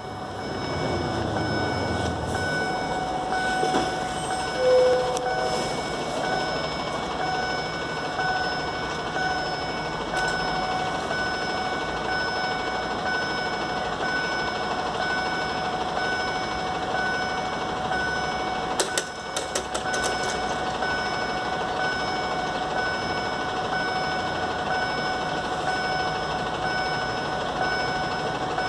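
Level-crossing GZT-30 acoustic warning signal beeping, a steady electronic tone repeating a little under twice a second, warning that the crossing is closing as the barriers come down. A few brief clicks sound around two-thirds of the way through.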